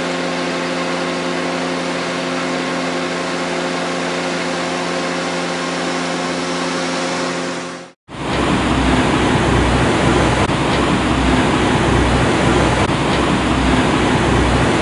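Bobcat compact track loader's diesel engine running steadily. After a sudden cut about eight seconds in, the louder, rougher rumble of a mini excavator at work takes over.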